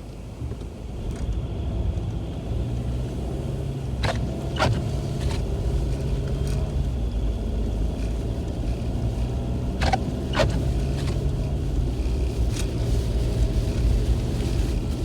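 Car running in slow snowstorm traffic, heard from inside the cabin: engine hum and road rumble that grow louder about a second in as the car moves off. Two pairs of short sharp clicks or squeaks come about six seconds apart.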